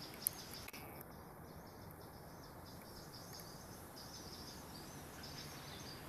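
Faint outdoor ambience: soft, repeated high-pitched chirping over a low background hiss, with one sharp click near the start.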